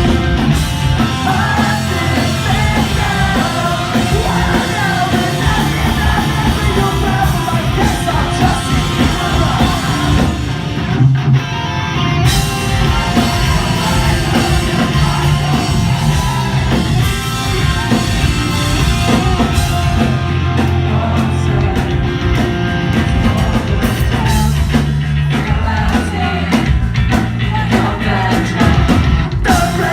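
Pop-punk band playing live at full volume: distorted electric guitars, bass and drums under sung and shouted vocals.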